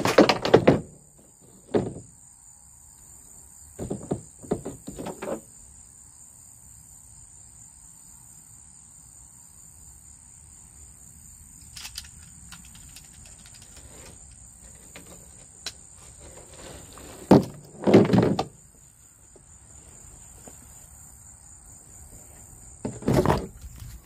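Scattered clunks and rubbing knocks of fishing gear and the phone being handled, in bunches about a second long, the loudest at the start, about three-quarters of the way through and near the end, over a faint steady high whine.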